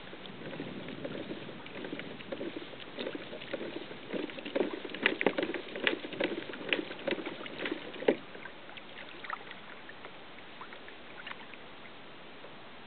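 Kayak paddling: the paddle blades dip and splash, and water slaps against the hull. The splashing is loudest through the middle and dies down about eight seconds in, leaving a quieter wash.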